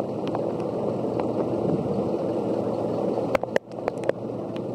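Steady rush of floodwater, with a few sharp knocks about three and a half seconds in.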